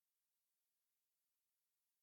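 Near silence: the sound track is muted, with no audible sound.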